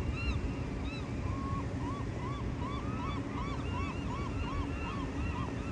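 A flock of birds calling: many short, arched calls overlapping, several a second, over a steady low rumble of wind on the microphone.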